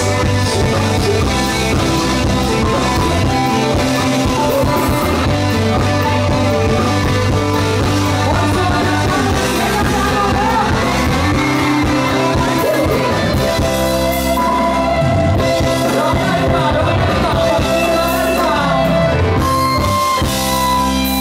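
Live pop-rock band playing loudly through a PA: electric guitar, bass and drums, with a sung vocal line.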